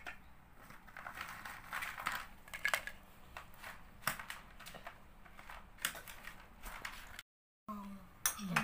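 Scattered light clicks and rustles of food being handled and set onto a plastic plate: fries and mixed vegetables going down beside a fried burger patty. The sound drops out briefly near the end.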